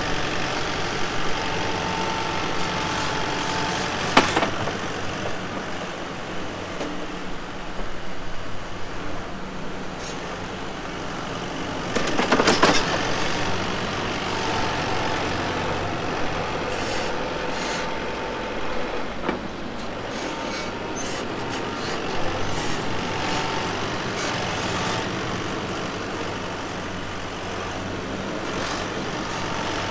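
Tractor engines running steadily as a Kubota loader tractor pushes grass silage up the clamp heap and another tractor works on top of it. A sharp knock comes about four seconds in, and the noise swells for a second or so around twelve seconds.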